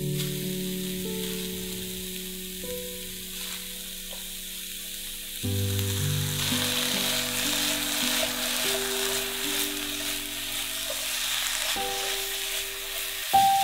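Food sizzling as it fries in hot oil in a pan, the sizzle growing stronger about six seconds in. Soft background music with long held notes plays underneath.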